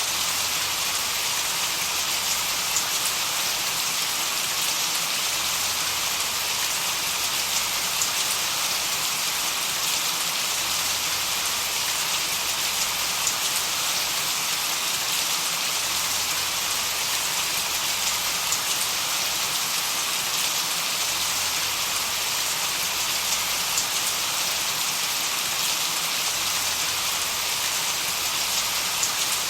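Steady white noise with a rain-like hiss, strongest in the high pitches, with a few faint ticks scattered through it.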